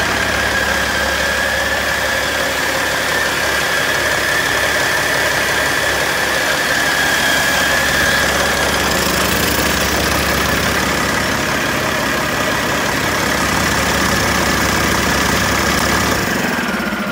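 Caterpillar C12 inline-six diesel engine running steadily at idle, with a steady high whine over the engine note. About sixteen seconds in the engine shuts off and the sound dies away.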